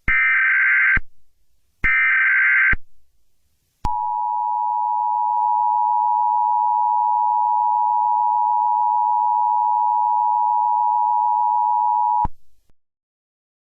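Emergency Alert System alert tones: two roughly one-second bursts of the warbling digital header data, a second apart, then the steady two-tone attention signal held for about eight seconds and cut off abruptly.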